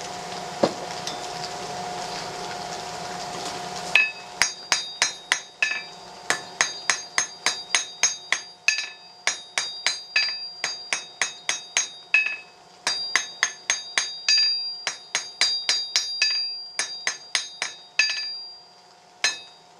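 A hand hammer strikes hot round steel on an anvil at about two blows a second, in runs with short pauses; each blow rings. This is the stock being drawn out to a square point to make a nail. For the first four seconds only a steady hiss is heard, before the hammering starts.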